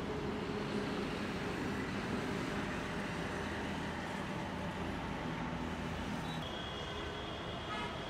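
Road traffic on a multi-lane highway: a steady hum of passing cars and motorbikes with low engine drone. A high steady tone joins in for the last second and a half.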